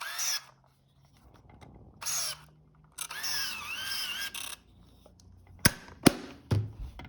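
Small electric motors of a Fuji GA645 medium-format camera whirring in three short runs with a wavering pitch, the last about a second and a half long. Three sharp clicks follow near the end.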